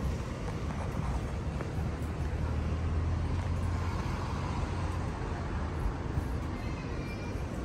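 Steady low engine rumble under a wash of noise, a little stronger through the middle.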